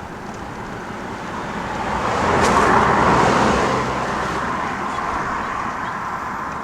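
A motor vehicle passes by on the highway, its engine and tyre noise swelling to a peak about three seconds in and then fading, over steady road traffic noise.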